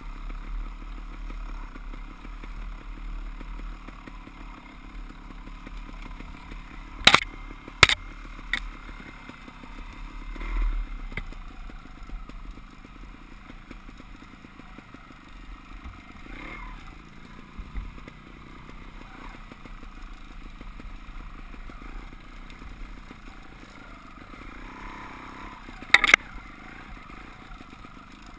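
Dirt bike engines running at low trail speed, a steady drone with a low rumble, broken by a few sharp knocks about seven seconds in and a double knock near the end.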